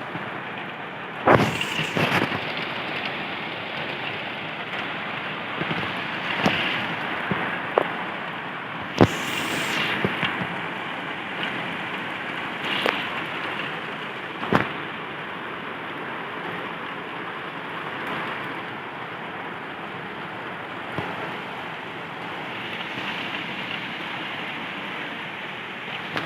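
Heavy rain pouring steadily, with sharp splats of drops striking close by several times in the first fifteen seconds.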